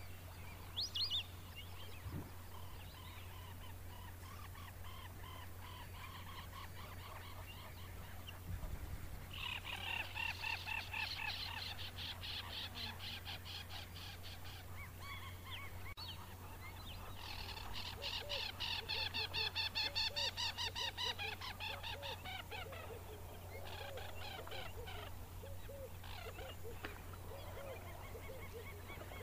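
African jacanas calling: long runs of rapid, harsh repeated notes, one starting about nine seconds in and another about seventeen seconds in, then shorter runs near the end, over a steady low hum.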